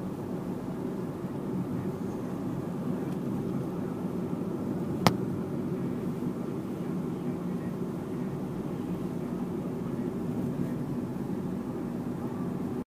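Steady engine and road noise heard inside a moving car, with a single sharp click about five seconds in.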